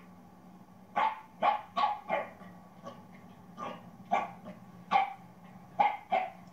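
Dog barking in short, sharp, fairly high barks, about nine of them in quick bunches starting about a second in.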